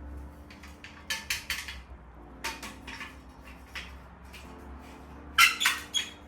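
Sharp metallic clicks and clinks from tools being handled, in three short clusters: about a second in, around three seconds in, and loudest near the end. A steady low hum runs underneath.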